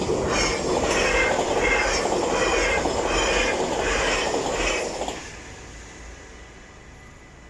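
Train passing through a level crossing at speed: loud rushing wheel noise with a regular pulsing clatter, cutting off abruptly about five seconds in as the last carriage clears.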